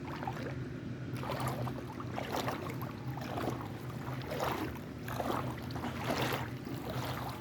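Irregular splashing and sloshing of shallow creek water, with a steady low hum underneath.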